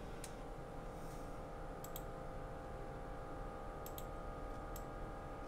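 Computer mouse clicking: a single click, a quick pair about two seconds in, another pair about four seconds in, and one more click near the end, over a steady low hum.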